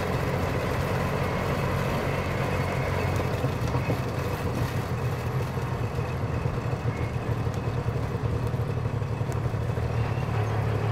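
Auto rickshaw engine running steadily at an even speed, with a low, pulsing engine note and no revving.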